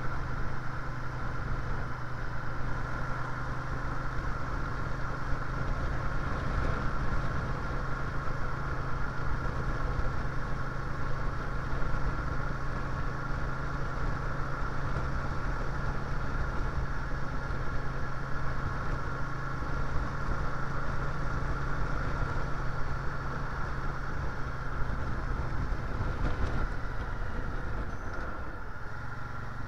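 Cruiser motorcycle engine running steadily at road speed, with wind rushing over the chest-mounted microphone. The sound drops a little near the end.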